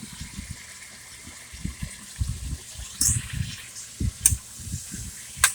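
Chicken sautéing with garlic and onion in a pot while it is stirred: a soft sizzle under irregular low knocks, with a few sharp clicks of the utensil against the pot.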